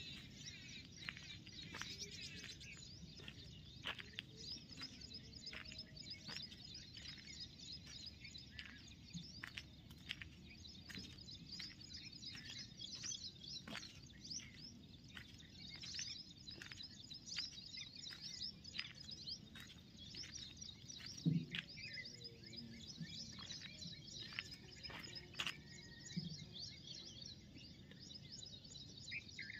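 Many small birds chirping in a steady chorus over a low background rumble, with scattered soft clicks, one a little louder about two-thirds of the way through.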